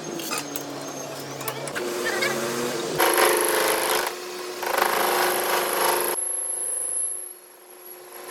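Workshop power tools working on metal, the noise changing from moment to moment, with two louder stretches of about a second each in the middle.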